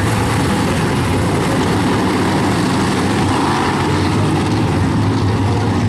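Dirt-track modified race cars running on the track, their engines a steady loud drone.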